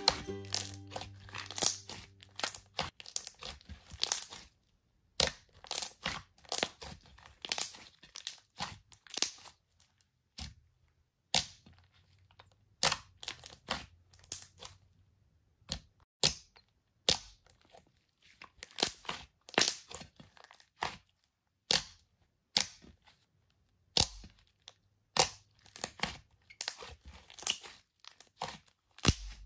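Thick slime being squeezed, pressed and stretched by hand. It gives irregular clusters of sharp, sticky crackles and pops, with short pauses between handfuls.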